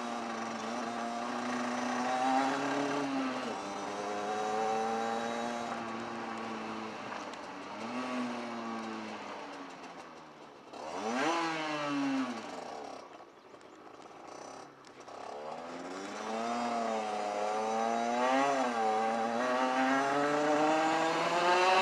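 Rieju RS2 Matrix Pro 50cc motorcycle's two-stroke engine revving up and easing off again and again as it rides through the gears. It drops away almost to idle around the middle, then pulls up through the revs again.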